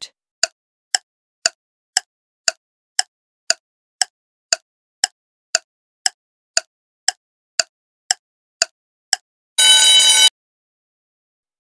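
Quiz countdown-timer sound effect: a clock ticking about twice a second, then a short loud buzzer near the end as the timer reaches zero to signal time is up.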